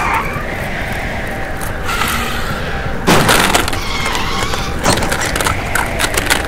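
Hollow plastic toy eggs tumbling out of a tipped plastic toy dump truck bed. A sudden loud rush of clattering knocks starts about halfway through, then many quick clicks as the eggs fall and land.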